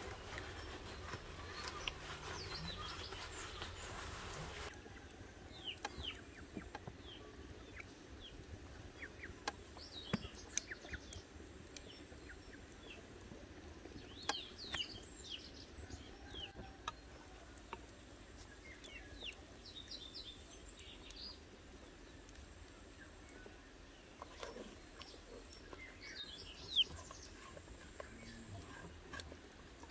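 Farmyard birdsong: short bird chirps scattered throughout, with chickens clucking now and then. A steady hiss fills the first few seconds, and a few sharp clicks and taps come through.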